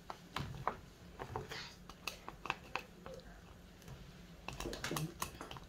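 Wooden spatula knocking and scraping against a metal frying pan as blocks of instant noodles are pushed around in the broth: a scatter of light clicks and knocks, busiest near the end.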